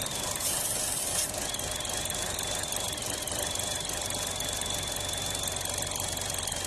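The 2016 Buick Encore's 1.4-litre turbo engine idling rough, with a steady high whistle over it; about half a second in a hiss cuts in and the whistle stops for under a second, then returns. The whistle is the sign of a vacuum leak at the crankcase vent disc on top of the valve cover.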